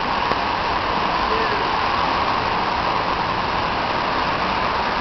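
Steady, even background noise with a constant hum-like band and no distinct events.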